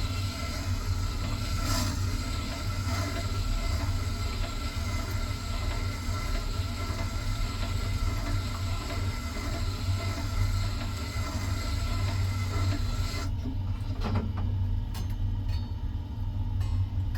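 Bucktools wet sharpener's motor humming steadily while a chisel is ground against the turning wet stone wheel with a continuous gritty rasp, raising a burr along the edge. About 13 seconds in the grinding stops as the chisel comes off the stone, leaving the motor hum and a few light clicks.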